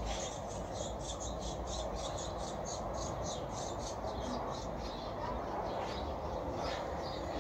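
Small birds chirping rapidly and high, about four to five chirps a second, over a steady hum of city traffic.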